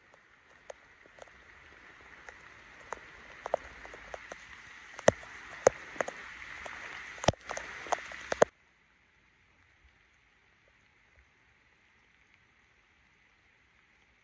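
Shiba Inu digging in wet soil with its front paws, a scratchy rustle dotted with sharp taps that grows louder and busier, then stops abruptly about eight and a half seconds in.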